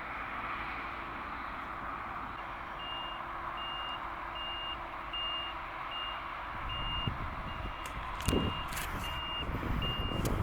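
Reversing alarm on a farm machine beeping at a steady pitch, about once every 0.7 s, over the steady noise of its running engine. A few sharp knocks come near the end.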